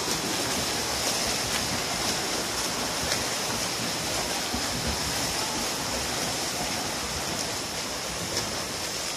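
Front-crawl swimmer sprinting close by, arms and flutter kick splashing the water in a continuous, steady churn.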